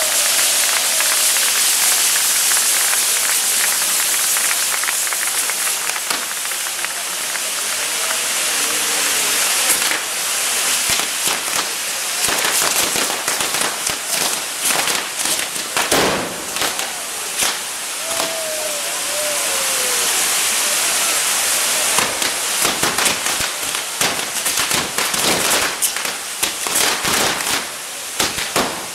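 Maltese ground-firework wheel (nar tal-art) spinning under the thrust of its fountains, which give a dense, steady hiss. From about ten seconds in, the hiss is joined by a thick run of crackles and sharp pops.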